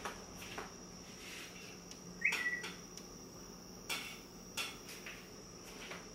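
Scattered light knocks and clatter of someone handling things in a workshop, with one short squeak about two seconds in, over a steady faint high-pitched whine.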